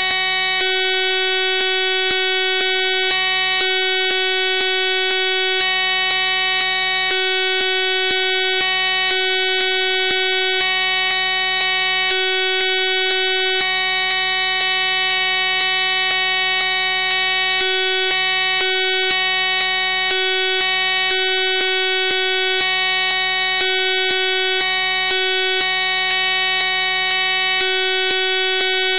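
Loud, steady electronic buzzing tone with many overtones, and a deeper hum that cuts in and out irregularly every second or two.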